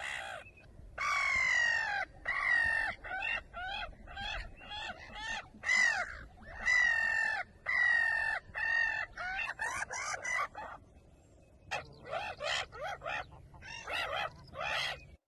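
Gulls calling: a long run of harsh, repeated calls, some short and some drawn out, with a break of about a second around eleven seconds in.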